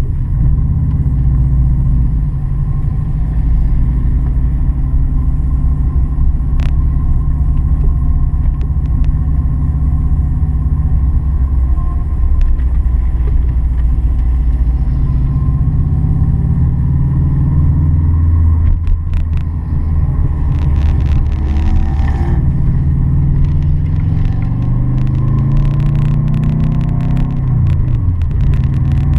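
Car engine running under way, a low rumble whose pitch rises and falls with throttle and gear changes, with scattered clicks and rattles in the second half.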